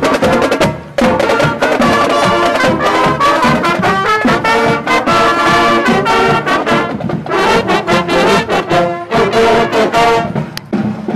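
Brass band playing loudly, trumpets and trombones carrying the tune, with a brief break about a second in.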